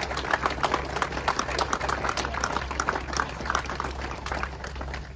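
Crowd applauding, the clapping thinning out near the end.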